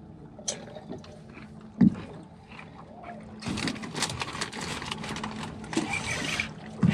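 A few faint knocks, then about halfway in a spinning reel is cranked fast: a steady rasping whir with fine clicking, as the angler reels into a hogfish that has taken a crab bait.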